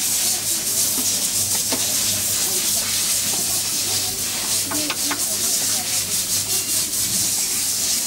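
Light rubbing and small clicks of fibre-optic patch-cord connectors being wiped on a lint-free pad and plugged into an optical test meter, over a steady hiss and a low hum.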